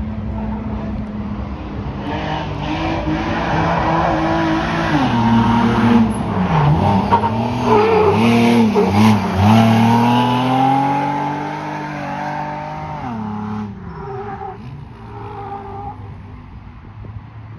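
Ford 3.7 V6 engine of a Class 7 desert race truck being driven hard on a fresh tune. The engine note dips and climbs several times as the throttle comes off and back on, grows louder to a peak about halfway through as the truck comes close, then fades away after about thirteen seconds.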